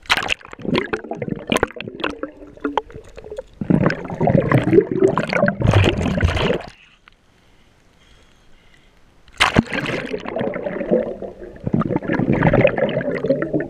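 Seawater splashing, sloshing and bubbling against an action camera as it is plunged from the surface down under water, with sharp clicks in the noise. It goes quiet for about two and a half seconds in the middle, then the splashing and gurgling start again.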